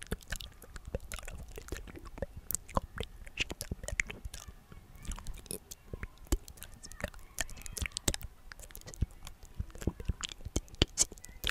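Inaudible ASMR whispering very close to the microphone: a steady stream of soft mouth clicks and lip smacks with wordless whispers.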